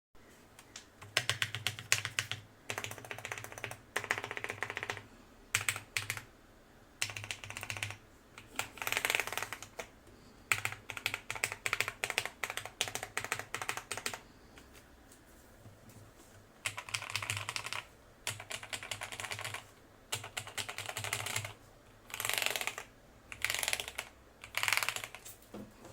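Typing on a Cherry G80-3000 mechanical keyboard fitted with lubed and filmed Cherry MX Black linear switches, dampening foam and PBT double-shot keycaps: bursts of fast keystrokes separated by short pauses, with a longer pause just past halfway.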